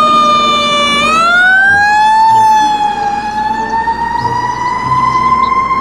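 Fire truck siren wailing loudly, its pitch dipping in the first second, climbing, then slowly sagging and rising again.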